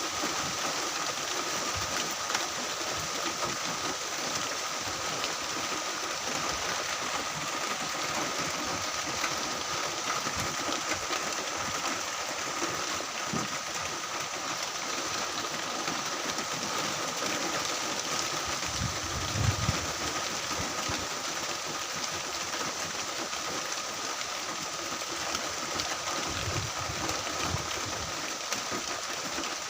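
Heavy rain falling steadily, a dense even hiss, with a brief low rumble about two-thirds of the way through.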